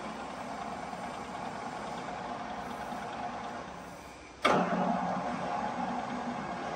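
Tiger FU-120 universal milling machine's feed drive running with a steady hum that slowly fades, then a sharp clunk about four and a half seconds in as the cross feed is engaged, after which the table feed runs with a louder steady hum.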